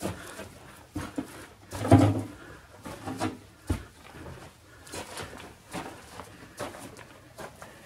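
Irregular footsteps and scuffs over ash and broken debris, mixed with handling knocks, in a small hard-walled room. The loudest thud comes about two seconds in, and there is a sharp click just before four seconds.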